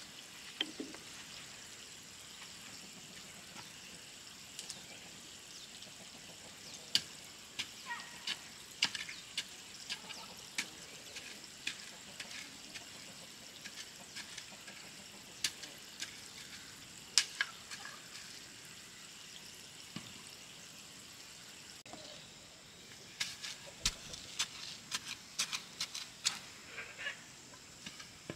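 Small hand hoe chopping into soil and knocking against stones in a flower bed: scattered sharp knocks, coming thick and fast near the end, over a faint steady high hiss.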